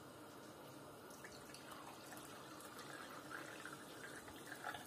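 Faint splashing and trickling of water poured from a plastic bottle into a glass tumbler, starting about a second in.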